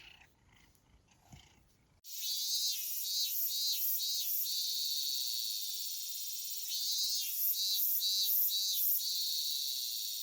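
Crickets chirping: a shrill high chorus with repeated short chirps and one longer trill. It starts abruptly about two seconds in, after a near-quiet moment.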